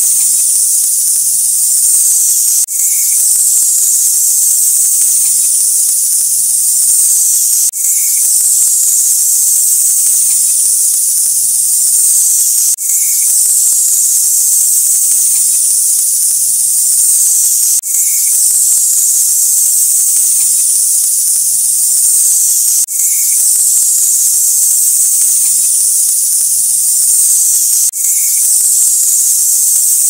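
Snake hissing loudly and steadily, a high airy hiss that breaks off and starts again about every five seconds, as a looped recording. Faint low musical notes run underneath.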